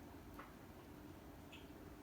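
Near silence with a low steady room hum and two faint short clicks.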